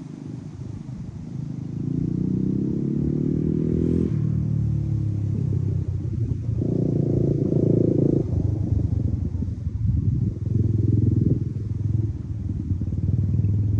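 A motor vehicle's engine accelerating. Its pitch climbs for about four seconds and drops suddenly, climbs again briefly and drops near the middle, then runs on at a lower, uneven pitch.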